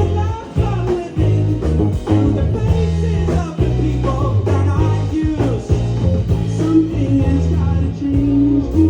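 A live rock band playing a song.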